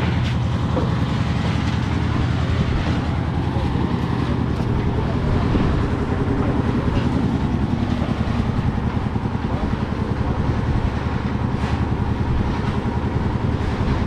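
An engine running steadily and continuously, a loud low-pitched drone with no pauses.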